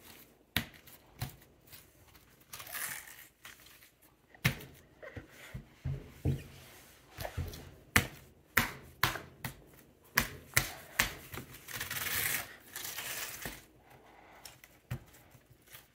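Slime being squeezed and worked in the hands, making irregular sticky clicks and pops, with a couple of longer, softer hissing stretches in between.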